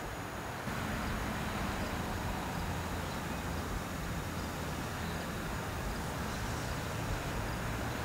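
Steady outdoor background rumble and hiss, a little louder from about a second in.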